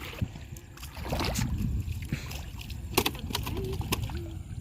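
River water sloshing and splashing as fish are caught by hand, with a couple of sharp knocks, about a second in and about three seconds in, over a low rumble.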